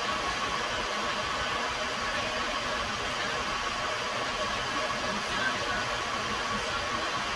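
Hand-held gas torch burning with a steady hiss as its flame heats a small metal part.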